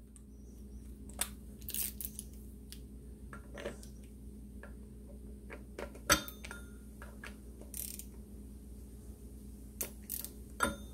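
Hand tools and bolts clinking on the flywheel of a Moto Guzzi engine as the flywheel bolts are worked loose: scattered light metal clicks and knocks, the sharpest about six seconds in, over a steady low hum.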